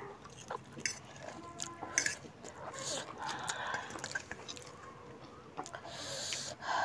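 Close-up eating sounds: instant noodles being slurped and chewed, with small clicks of mouths and forks and a couple of short hissy slurps or intakes of breath, around three seconds in and near the end.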